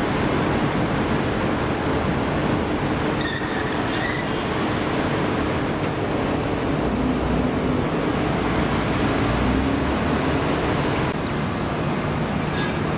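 Steady road traffic noise from a dense line of cars and a coach crawling along a busy city street, with a few brief faint high squeaks around the middle.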